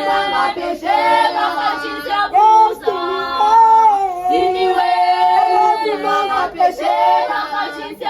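A group of voices, mostly women's, singing together in harmony with long held notes.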